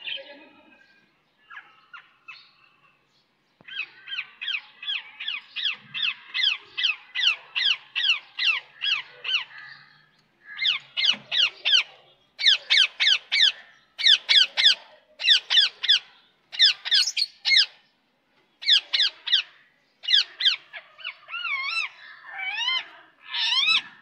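Rose-ringed (Indian ringneck) parakeet calling: a long series of high-pitched screeches repeated about two to three times a second, coming in bursts with short gaps, and turning to wavering warbled calls near the end.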